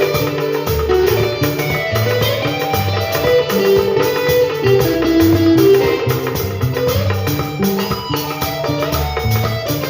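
Yamaha X600 electronic keyboard playing a Latin-style accompaniment: a plucked guitar-like voice over a moving bass line, with drum and percussion hits keeping a steady beat.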